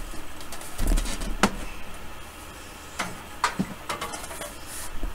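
Metal cabinet of a Hallicrafters S-40 communications receiver being handled and turned over on a workbench: several sharp knocks and clunks of sheet metal, two about a second in and a quick cluster near three to four seconds in.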